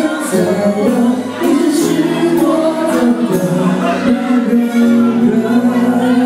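A live band playing a love song, with a woman singing lead over drums, cymbals and sustained bass and guitar notes.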